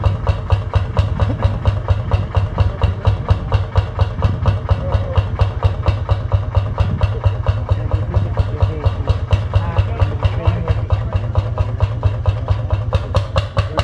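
Lanz Bulldog tractor's single-cylinder hot-bulb engine running at a steady pace under plowing load, each firing stroke a separate beat in an even rhythm.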